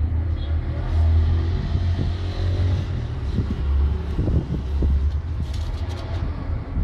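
A loud, uneven low rumble, with a few faint clicks or rustles a little before the end.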